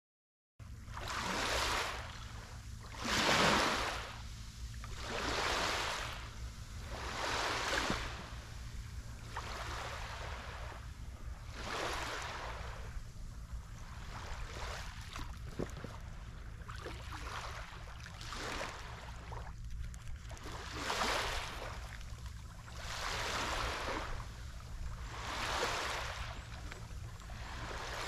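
Waves breaking on a sandy beach, the surf swelling and washing in every few seconds, more often in the first several seconds, over a steady low rumble.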